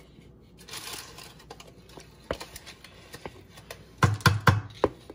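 Spatula scraping thick cake batter out of a mixing bowl into a lined cake pan, with scattered small clicks. About four seconds in comes a quick run of about five loud knocks against the bowl and pan.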